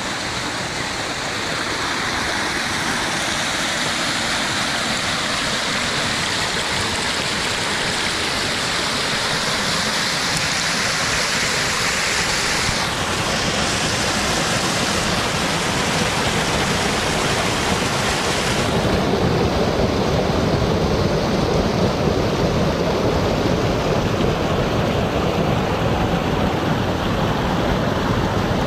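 Water rushing over the rocks and concrete spillway of a small dam, close to the microphone: a steady loud rush. About two-thirds of the way through it turns deeper and less hissy.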